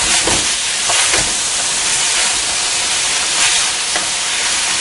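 Diced chicken, sausage, tomato and capsicum sizzling steadily in a stainless steel pot over a fairly high heat, stirred with a wooden spoon that scrapes and knocks a few times.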